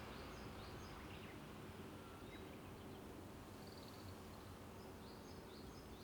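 Faint wild bird song: scattered short high chirps and a couple of brief trills, over a steady low rumble of distant road traffic.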